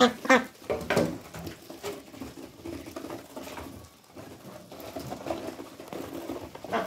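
White ducks feeding from a tub of dry crushed feed: a fast, irregular patter of bills pecking and dabbling in the grain, with a few short quacks in the first second and another at the very end.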